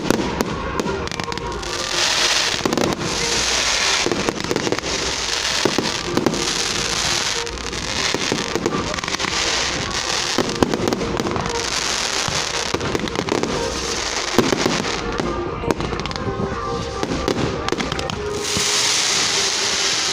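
Fireworks display: a run of sharp bangs and cracks, with a hissing crackle of about a second from each burst, repeating every second or two.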